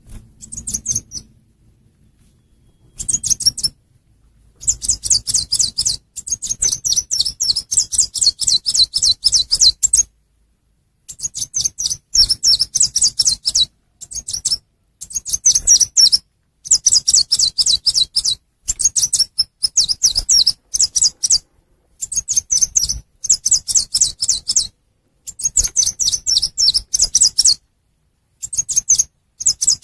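Lure-call recording of a chim sâu xanh, a small songbird: rapid runs of thin, high chip notes in bursts of one to three seconds with short pauses between them, some runs sliding down in pitch.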